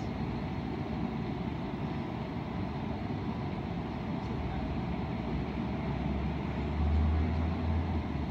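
Steady low outdoor background rumble, growing deeper and heavier for a couple of seconds near the end.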